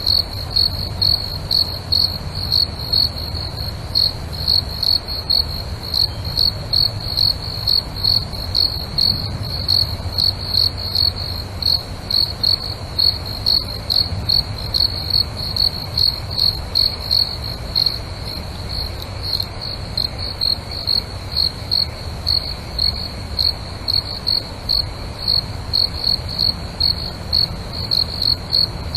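Night ambience of a cricket chirping: a high-pitched chirp repeating evenly about two to three times a second, over a low rumble.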